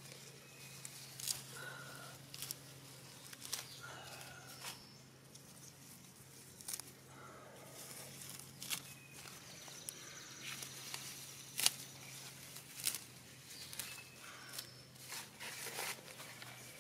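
Turnip and mustard greens being picked by hand: irregular sharp snaps of stems breaking off and leaves rustling, quiet, over a steady low hum.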